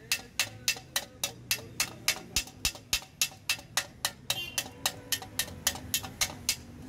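A small hammer tapping steadily on a Honda CD 70's chrome-plated steel front mudguard, about three sharp, ringing strikes a second, beating out a dent in the sheet metal. The tapping stops near the end.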